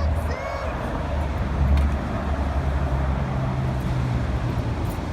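Heavy rain pouring down over the steady low rumble of road traffic, with a brief squeak near the start.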